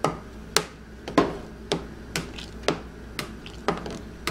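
A wooden spoon knocking against the side of a large aluminium stockpot while stirring boiling seafood-boil liquid, about two sharp clacks a second in a steady rhythm.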